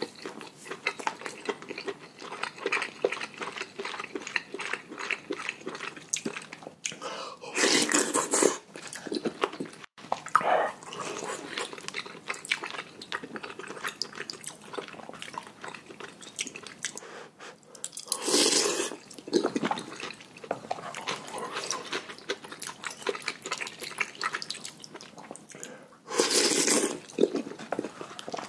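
Close-miked eating of noodles: steady wet chewing and mouth clicks, with three louder slurps of about a second each, roughly eight, eighteen and twenty-seven seconds in.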